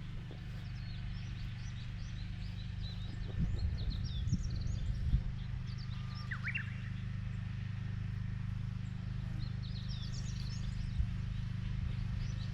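Engine of a mechanical vegetable transplanter running steadily with a low hum, with a few clunks a few seconds in. Birds chirp over it throughout.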